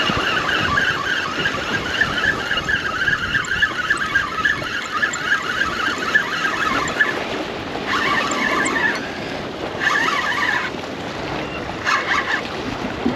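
A fishing reel clicking rapidly as line is wound in after a hooked bat ray: one long run of about seven seconds, then three shorter spurts. A steady rushing background lies under it.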